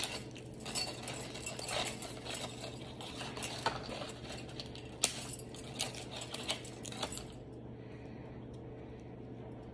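Aluminium foil crinkling and crab-leg shells clicking as gloved hands pick through a foil-lined dish of crab legs: a run of sharp, irregular crackles and clicks that stops about seven seconds in.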